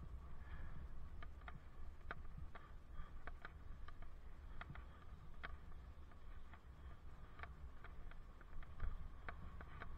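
Bicycle ride heard through a helmet-mounted camera: a steady low rumble of tyres on pavement and wind, with scattered light clicks and rattles at irregular intervals.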